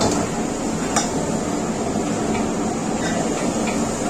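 Wok stir-frying over a high-pressure commercial gas burner: the burner's steady rush of flame, with a metal ladle knocking against the wok a few times, the sharpest knock about a second in.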